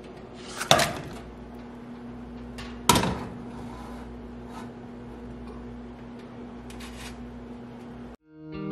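Metal canning jar lids put into a saucepan of water, with two sharp metallic clinks and a few lighter clicks after, over a steady low hum.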